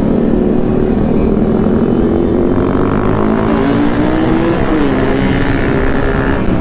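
Yamaha RX-King's two-stroke single-cylinder engine running under way at steady throttle, its pitch dipping a little about four and a half seconds in, with wind rumble on the microphone.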